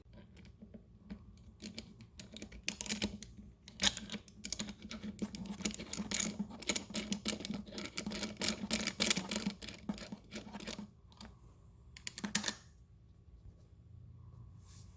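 Small hard plastic parts being handled, with a rapid run of clicks and clatters for about ten seconds, then a couple of louder clacks near the end.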